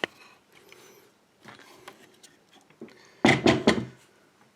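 Handling noise from a lock cylinder and picking tools: a sharp click at the start, faint rustling and clicks, then a quick cluster of three loud knocks a little over three seconds in.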